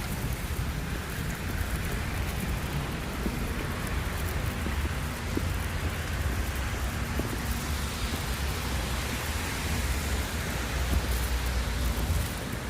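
Steady wind buffeting the microphone, with an even rushing hiss of a heavy snowstorm.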